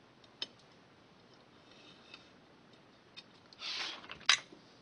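A few light clicks at the workbench, then near the end a short scratchy rustle and a sharp clack, the loudest sound, as the soldering iron is lifted out of its holder on the soldering station.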